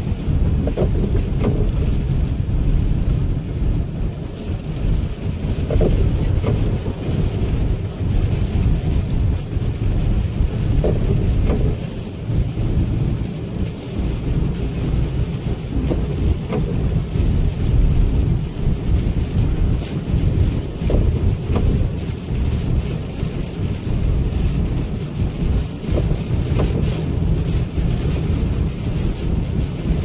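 Loud, fluctuating low rumble of a car driving through a snowstorm: tyre and road noise mixed with wind buffeting, heard from inside the vehicle.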